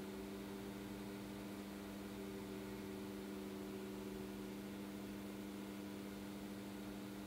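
Steady low hum of a few fixed tones over a faint hiss, with a slightly higher tone over it that fades out about four seconds in: background room tone.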